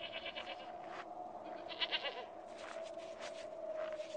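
Goat bleating twice, a quavering bleat at the start and another about two seconds in, over a steady tone.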